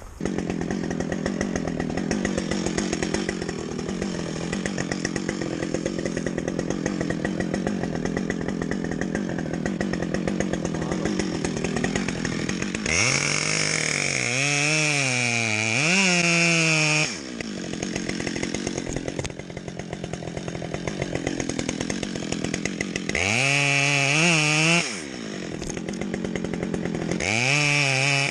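Gas chainsaw running steadily, then revved up hard three times, its pitch climbing each time, during cuts in felling elm trees.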